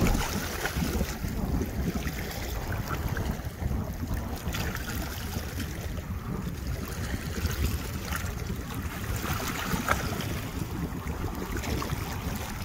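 Wind buffeting the microphone in a steady low rumble, with small waves lapping and splashing against the shoreline rocks now and then.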